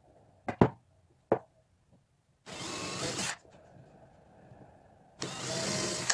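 A few sharp knocks of wooden pieces, then a power tool running in two short bursts of about a second each, about two and a half seconds apart.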